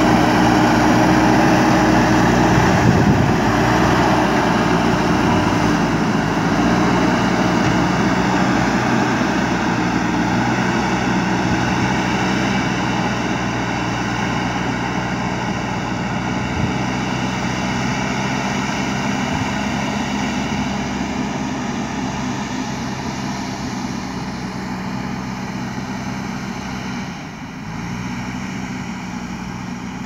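JCB 3DX backhoe loader's diesel engine running steadily under load as it pushes soil with its front bucket, the engine sound slowly fading as the machine works farther away.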